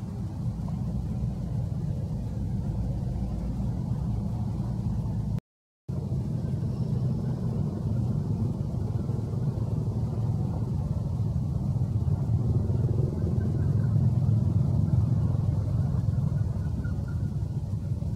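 A steady low rumble that cuts out completely for a split second about five and a half seconds in.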